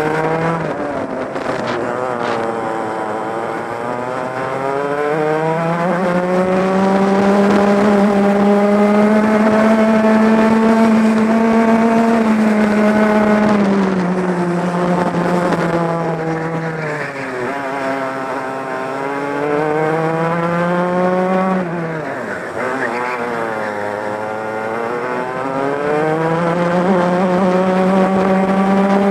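Two-stroke racing kart engine heard on board, revving up in long climbs along the straights and dropping sharply in pitch each time the driver lifts off for a corner, three times over, then climbing again toward the end.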